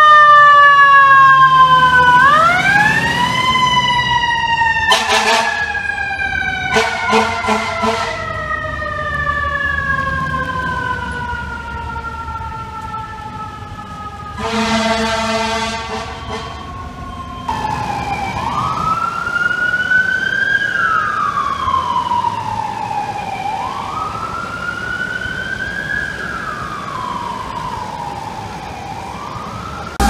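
Fire engine siren and air horns: one siren winds up, then falls slowly in pitch for about fifteen seconds, cut across by a few short air-horn blasts and one longer blast midway. Past the middle, another siren rises and falls in a slow, even wail.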